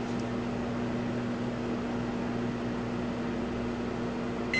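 Microwave oven running: a steady hum and fan noise. Right at the end the hum stops and the oven's end-of-cycle beep starts.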